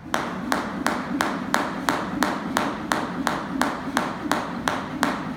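Speed jump rope slapping a rubber gym floor with each skip, a sharp, even click about three times a second that starts at the outset as the skipping begins.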